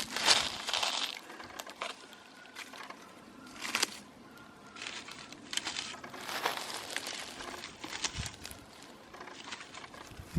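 Plastic litter and a trash bag crinkling and rustling in irregular bursts, loudest in the first second, with a couple of sharp clicks about four and eight seconds in.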